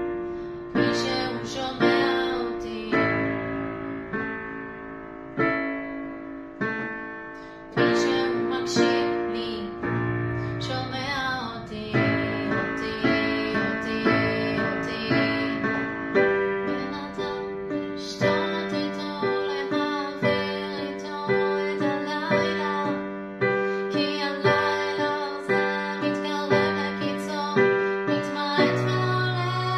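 Digital piano playing a song arrangement in chords. The chords are spaced out and left to ring at first, then about halfway through settle into a steady pulse of repeated chords.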